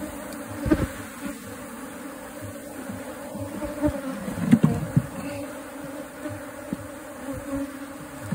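Honeybees buzzing in a steady drone, a colony stirred up as its nest in a tree trunk is opened and the comb cut out. A few short knocks from handling, the strongest about four and a half seconds in.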